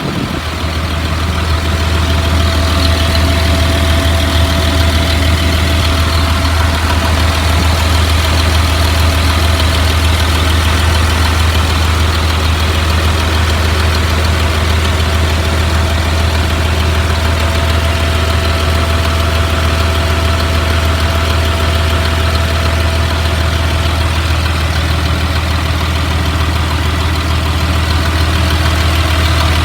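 2004 Blue Bird All American school bus engine idling smoothly and steadily, heard close up, with a low, even hum and no change in speed.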